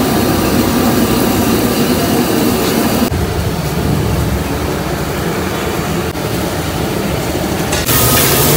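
Gas wok burner running with a steady rushing noise. Near the end a brighter hiss comes in as steam billows off the hot wok.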